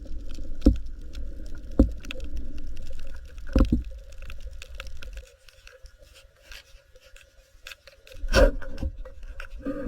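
Water sounds heard underwater: steady fine crackling and a low rumble, with four heavy knocks spread through, the loudest about two-thirds of the way in.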